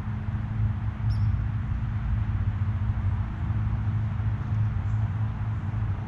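Steady low mechanical hum with a faint hiss over it, and one short, high bird chirp about a second in.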